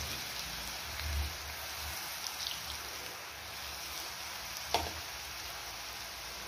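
Potato sticks deep-frying in hot oil in a stainless steel pan: a steady sizzle as they are dropped in one by one. A single sharp tap comes nearly five seconds in.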